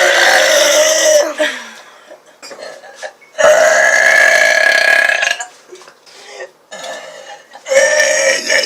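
A woman belching loudly in long, drawn-out burps: one trailing off about a second in, a second lasting about two seconds in the middle, and a third starting near the end.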